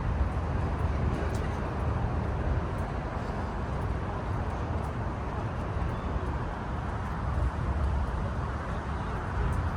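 Steady low rumble of outdoor background noise, heaviest in the bass and even throughout, with no clear single event.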